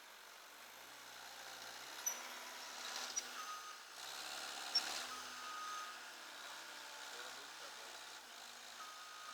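A distant vehicle's reversing alarm beeping on and off, each beep about half a second long and a few seconds apart, over faint outdoor background, with a few sharp clicks.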